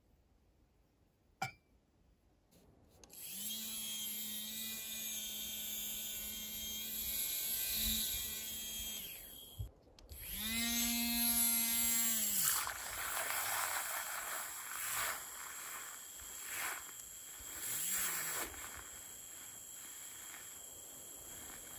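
Handheld battery milk frother's small motor whining at a steady pitch. It switches on about three seconds in, after a single click, stops briefly near ten seconds, then turns to a rougher, hissing whirr as it whisks milk in a cup into foam.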